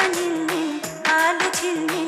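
Background music with a steady percussive beat, about two strokes a second, under a wavering melody line.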